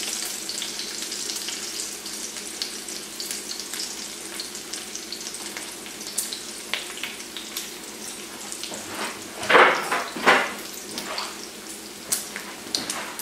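Bacon strips frying in their own grease in an electric skillet, a steady crackling sizzle. A few short, louder bursts come about ten seconds in and again near the end.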